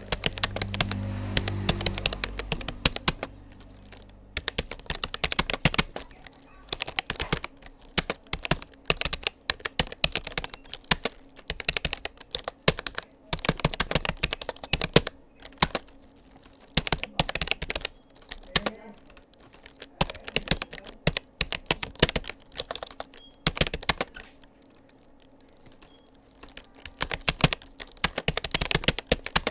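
Rapoo computer keyboard being typed on at a steady touch-typing pace of about 35 words per minute: rapid runs of key clicks broken by brief pauses, with a longer pause a few seconds before the end. A low rumble sounds under the clicks in the first few seconds.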